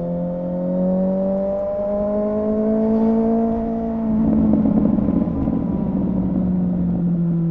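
2017 Suzuki GSX-S750's inline-four engine running through a Yoshimura R11 exhaust with the dB killer removed. The note rises slowly for about four seconds, then turns louder and rougher, with the pitch easing back down.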